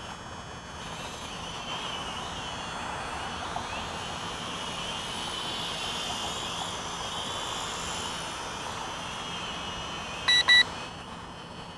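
Tarantula Spider 1505 quadcopter's motors and propellers whining in flight overhead, the pitch wavering as it manoeuvres. Near the end, two short, loud electronic beeps.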